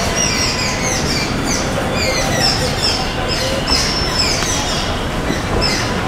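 Many short, falling chirps from small birds, several a second, over a loud, steady background noise.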